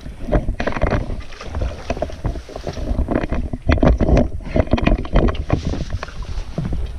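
Irregular splashing, knocks and rustling as a hooked bowfin is brought out of the water and handled on a wooden dock.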